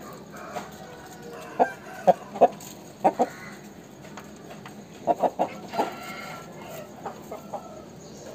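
Chickens clucking: short, sharp clucks in clusters about two and five seconds in, with a longer drawn-out call about six seconds in.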